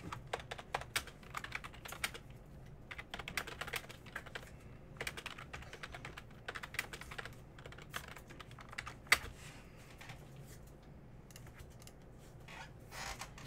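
Typing on a computer keyboard: clusters of irregular key clicks, with one sharper click about nine seconds in.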